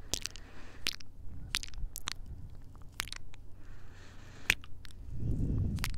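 Soft kissing sounds made right against a handheld Tascam recorder's microphone: about eight wet lip smacks and pops, with breathy hiss between some of them and a low rumble near the end.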